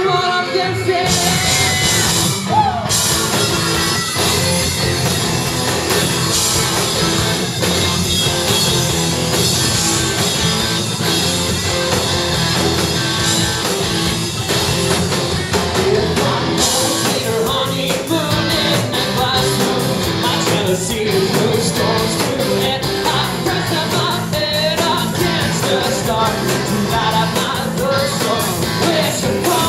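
Rock band playing loudly with a singer's vocals over the music.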